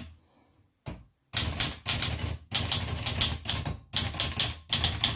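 Olivetti Lettera 32 manual portable typewriter from 1970 being typed on. After a single click about a second in, a quick, uneven run of key strikes follows as the typebars snap against the platen.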